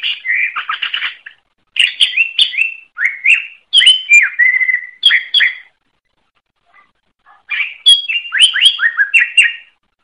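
Cucak ijo (greater green leafbird) singing a fast, varied song of whistled and sharply slurred notes. It comes in bursts, with a pause of about two seconds past the middle.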